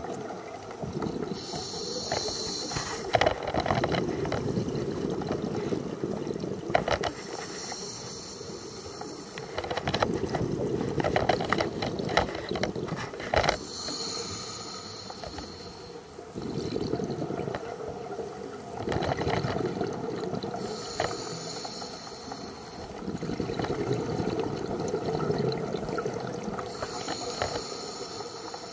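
Scuba breathing through a regulator underwater: a hiss on each inhale alternating with a bubbly rumble of exhaled air, about five breaths, one every six seconds or so.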